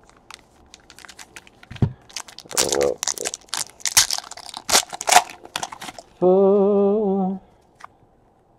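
Foil wrapper of a trading-card pack crinkling and tearing open as the cards are pulled out, a run of quick crackles and snaps. About six seconds in, a steady hummed note is held for about a second.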